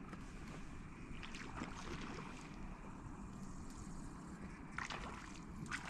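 Faint lakeshore ambience: wind and small waves lapping at the bank, with a few soft clicks near the end.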